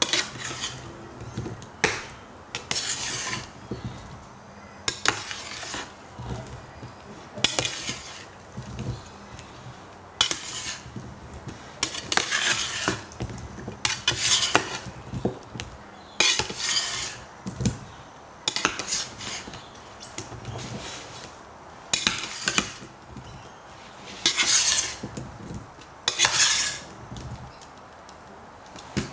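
Metal spatula scraping across a metal roasting pan and clinking against its rim as it turns and spreads parboiled potato chips coated in oil. The scrapes come one after another, every second or two.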